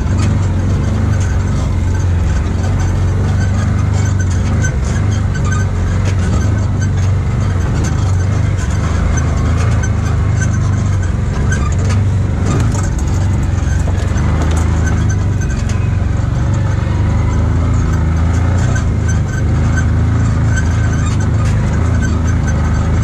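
Side-by-side UTV's engine running steadily as it drives along a rough trail, with frequent short knocks and rattles from the machine jolting over the ground.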